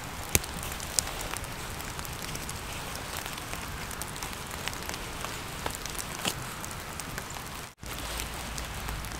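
Light rain pattering, a steady hiss with scattered drops ticking close by. The sound drops out for an instant near the end.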